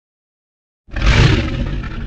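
Designed T. rex roar sound effect, layered from creature and animal roars: after silence it starts suddenly a little under halfway in, loud, with a deep rumble beneath a harsh upper part.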